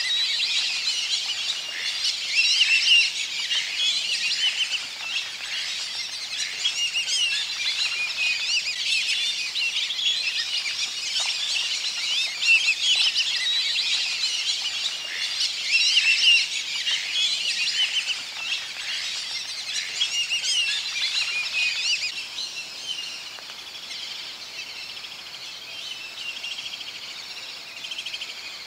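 A dense chorus of bird calls: many high chirps and whistles overlapping without a break, thinning out and growing quieter about three-quarters of the way through.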